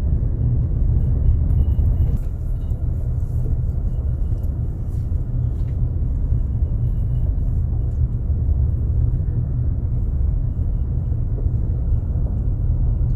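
Car rolling over a gravel road, heard from inside the cabin as a steady low rumble of tyre and road noise, with a few faint ticks.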